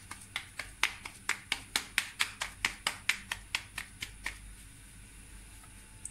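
A ball of atta (wheat-flour) dough slapped back and forth between floured palms to flatten it into a round, about four to five quick slaps a second for some four seconds, then stopping.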